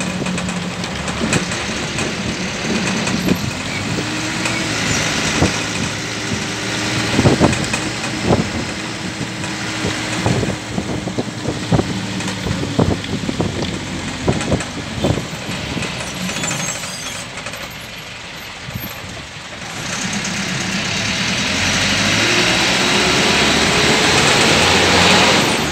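Engine and road noise of a moving road vehicle heard from inside, with many short knocks and rattles over a stretch of the ride. Near the end the engine pitch rises as it accelerates.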